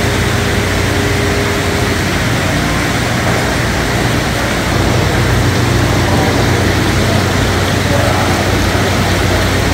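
Steady rush of seawater running and circulating through live shellfish holding tanks, with a steady low machine hum underneath.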